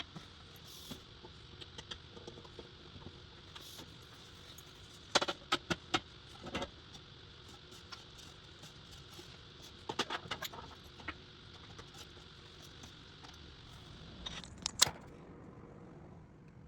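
Computer keyboard keys clicking in three short runs of quick taps over a faint steady hum; the hum's high tone stops near the end.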